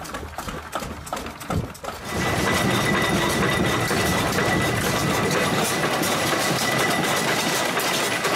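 Single-cylinder Cummins Model F diesel engine running. Evenly spaced, quieter knocks for about two seconds, then a cut to a louder, dense, steady clatter with a thin high tone for the rest.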